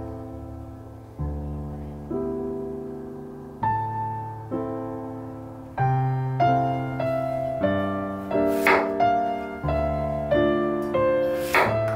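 Gentle piano music plays throughout. Twice in the second half, a kitchen knife cuts through a Korean zucchini and strikes the wooden cutting board with a short, sharp chop.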